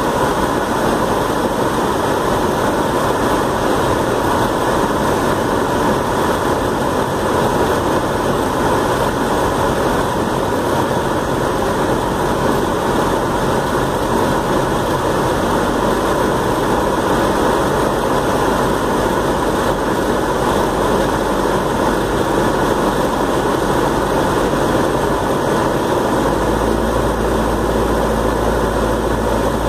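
Cessna 172's piston engine and propeller droning steadily, heard inside the cabin on approach to the runway. Near the end a steady low hum comes in under the drone.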